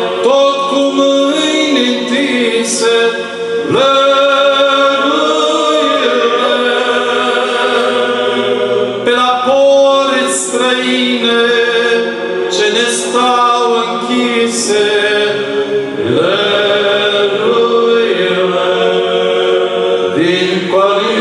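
Male choir of Orthodox priests singing a Romanian colind (Christmas carol) a cappella, in long sustained phrases, with a new phrase starting about four seconds in and again near the end.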